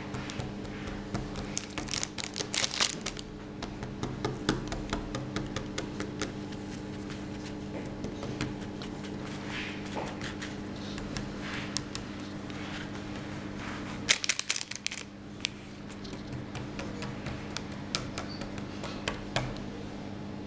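Crinkling and rustling of a clear plastic wrapper and a crocheted toy being handled on a table top, in scattered crackly bursts, loudest about two to three seconds in and again about fourteen seconds in. A steady low hum sits underneath.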